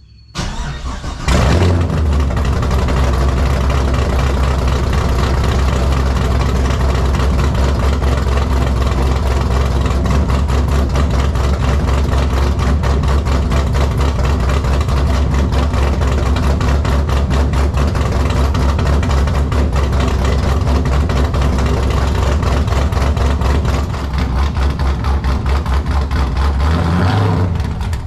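Cold start of a 2004 Pontiac GTO's Texas Speed 408 stroker V8: a brief crank, the engine catching with a burst of revs about a second in, then settling into a loud idle with an even, pulsing beat.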